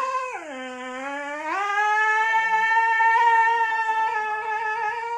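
A husky howling in one long, song-like note: the pitch sags about half a second in, climbs back, and is then held steady.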